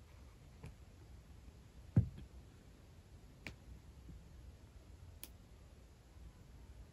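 Quiet room tone broken by a few handling clicks as the filmer moves over the sticker sheets: a soft thump about two seconds in, the loudest sound, then two light clicks.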